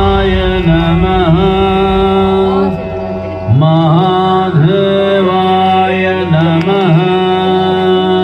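Indian devotional music, a chant-like melody with sliding pitches over a steady drone, playing loudly as the soundtrack of the statue's light and sound show.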